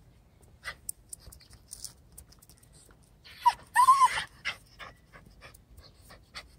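White puppy panting, with two short high whines about halfway through, each rising and falling, and scattered small ticks around them.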